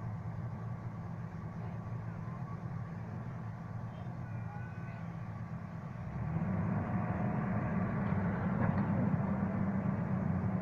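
Heavy diesel engine running steadily, getting louder about six seconds in as it is put under more load or revved.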